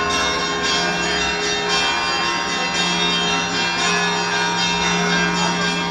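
Russian Orthodox monastery bells ringing a peal: bells struck about once a second, their tones overlapping and ringing on, over a steady low hum.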